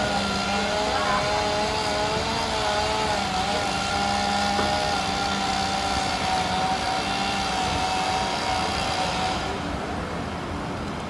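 Vehicle engine noise with a high, slightly wavering whine held over it, which fades out about nine seconds in.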